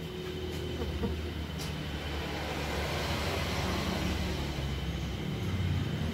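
A low rumble that slowly grows louder, with a few faint clicks from a hand tool working inside a wooden stingless-bee box.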